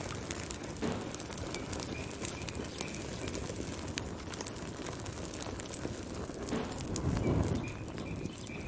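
Wood fire burning, with frequent sharp crackles and pops over a steady low rush of flames that swells briefly about seven seconds in.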